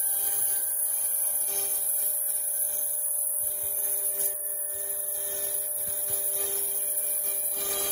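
CNC router spindle running with a steady whine and a high hiss of cutting as its tilted bit carves the block.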